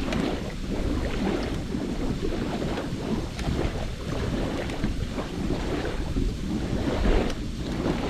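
Wood campfire burning: a steady rushing noise with a few sharp crackles, and wind buffeting the microphone.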